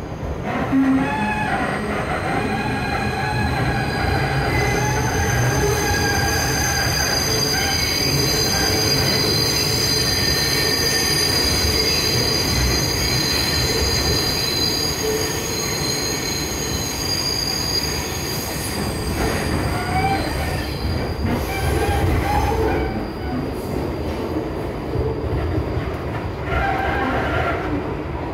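New York City subway car, an R62 on the 3 express line, heard from inside while it runs through the tunnel with a steady rumble. From about four seconds in to about eighteen, several high-pitched wheel squeals ring at once. Near the end the train is moving alongside a station platform.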